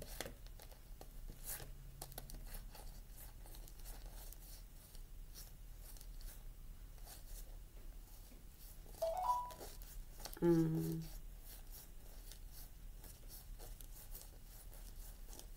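Quiet pause: faint scattered clicks and rustles over a low steady hum. Two brief murmured voice sounds come about nine and ten and a half seconds in.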